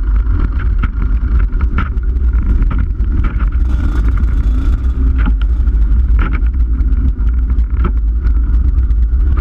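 Rotax two-stroke kart engines running at low speed, picked up by a camera mounted on a kart. A heavy low rumble of vibration and wind covers them, with scattered short knocks.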